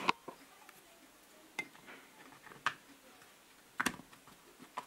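Hard plastic clicks and knocks as the halves of a cordless hex driver's housing are handled and pressed together. There are about five sharp clicks, the loudest at the start and about four seconds in.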